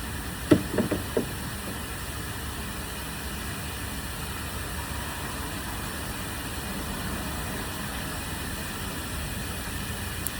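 A few sharp knocks about half a second to a second in, then a steady low hum.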